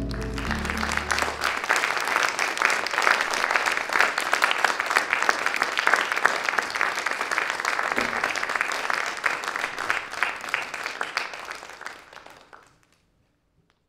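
Theatre audience applauding: dense clapping that tails off and stops about a second before the end. Music fades out under the applause in the first second or two.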